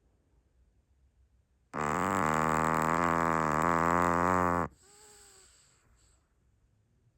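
Chihuahua snoring: one long, loud, buzzing snore lasting about three seconds, starting a couple of seconds in and stopping abruptly, followed by a faint falling whistle on the breath.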